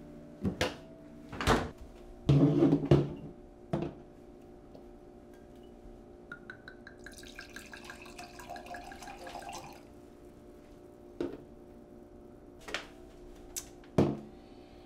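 Red wine poured from a glass bottle into a wine glass: quick glugs rising in pitch, then a steady pour, from about six seconds in to about ten. Several sharp knocks and clunks come in the first four seconds and a few more near the end, the loudest just before the end.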